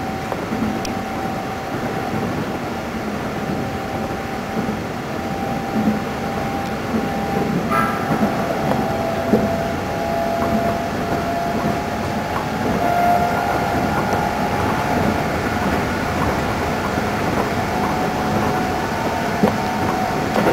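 Keikyu 600 series electric train running, heard from inside the front of the passenger car: a steady rumble of wheels on rails with whining tones that grow stronger in the second half, and one short sharp sound about eight seconds in.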